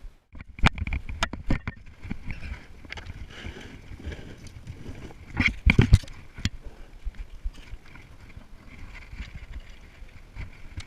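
Knocks and splashes from a kayak on the water: paddle or fishing gear knocking against the plastic hull, with a cluster of louder knocks a little past the middle.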